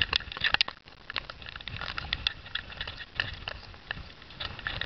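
Wind buffeting the microphone in a 40-knot squall, a low rumble under irregular crackling ticks of rain and spray striking the camera.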